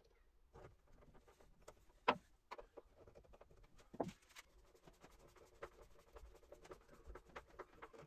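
Faint clicks and scrapes of a screwdriver driving stainless steel screws into a round stainless steel vent on a wooden bulkhead, with two sharper knocks about two and four seconds in.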